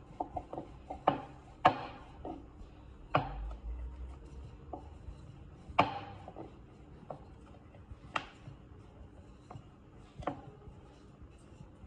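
A rolling pin rolling out paratha dough on a board: irregular sharp knocks and clicks as the pin is set down and moved, a few louder than the rest, with faint rubbing between.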